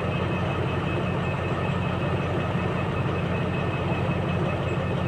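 SRT Alsthom diesel-electric locomotive No. 4136 idling while the train stands at the station: a constant low hum, with a faint high whine over it.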